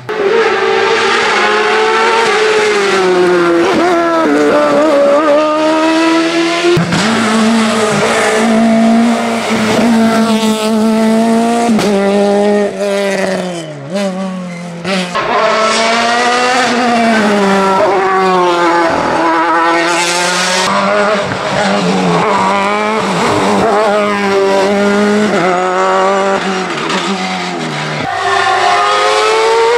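Loud racing car engines at high revs, their pitch climbing and dropping over and over as drivers change gear and lift for a bend, with tyre squeal. Several cars pass in turn.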